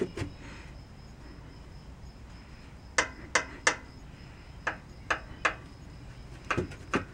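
Sharp metallic clicks, mostly in runs of three, from the rocker arms of an air-cooled VW Beetle engine being rocked by hand with the valve cover off.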